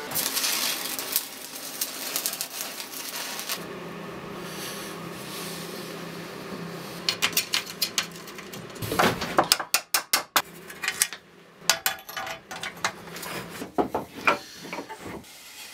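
Metal parts and hand tools clinking and knocking on a workbench as a bike chain and sprocket assembly is fitted. A steady hiss and hum fill the first half, then a run of sharp clicks and knocks starts about seven seconds in.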